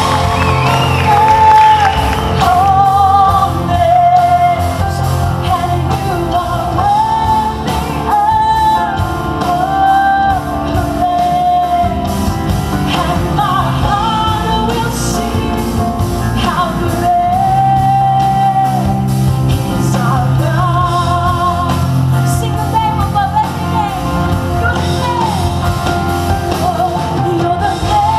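Live band music: a woman sings lead over electric guitars, drums and keyboard, with the echo of a large hall.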